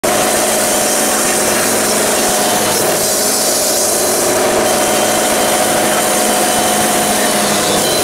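Wood-Mizer LT70 band sawmill running steadily while its band blade saws a white oak log: a steady engine tone under a hiss from the blade.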